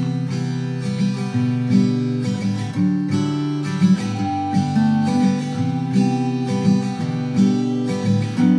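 Background music: a song's instrumental passage led by strummed acoustic guitar, with a steady beat.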